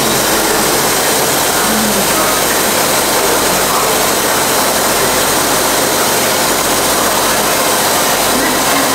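Engine idling steadily: a loud, even drone with a low hum underneath, with no change all the way through.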